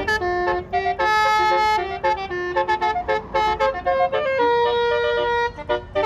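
Basuri multi-note telolet bus horn playing a quick tune of short stepped notes. It holds a chord about a second in and a longer one past the middle.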